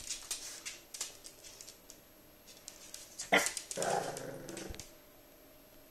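French Bulldog puppy scampering on a wooden floor, its claws clicking lightly. A sharp knock a little over three seconds in, then a brief puppy vocalisation lasting about a second.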